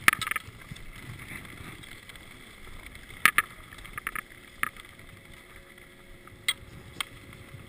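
Skis and ski poles clacking on packed snow as skiers shuffle forward: a few sharp, irregularly spaced clicks over a steady low rumble.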